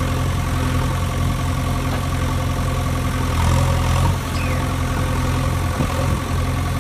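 Vehicle engine idling, a steady low rumble that swells slightly about three and a half seconds in; an engine sound effect laid over the toy play.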